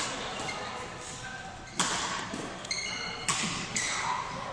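Badminton rally in a reverberant sports hall: a few sharp cracks of racquets striking a shuttlecock, the last two close together, and a brief high squeak of court shoes on the synthetic floor about three seconds in.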